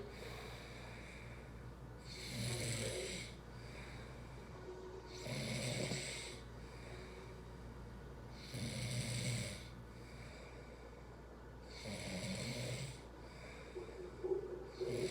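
A sleeper with sleep apnea snoring, one snore about every three seconds, four in all, with another starting near the end. A steady low hum runs underneath.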